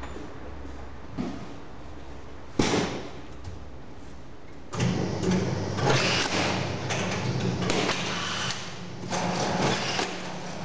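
A sharp knock, then about two seconds later an arch strapping machine's motor starts and runs with a steady hum. Irregular clattering and rattling sit over the hum as a cardboard box is set on the machine's table.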